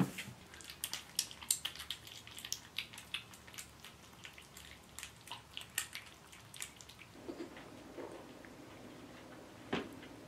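Kittens eating wet cat food from a stainless steel bowl: a quick, irregular run of small wet smacking and licking clicks that thins out after about seven seconds, with one louder click near the end.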